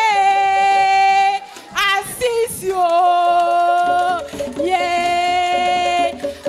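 A group of students singing a school chant, unaccompanied. They sing three long held notes, each about a second and a half, with a short rising phrase and brief breaks between them.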